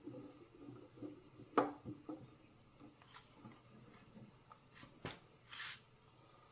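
Faint clicks and light knocks of a hand screwdriver and screws being handled on a bottle-filling machine's housing, with the sharpest knock about a second and a half in and a short scrape near the end.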